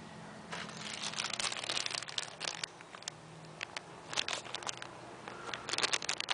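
Hands handling computer parts: irregular crinkling and light clicking, with a denser run of clicks near the end.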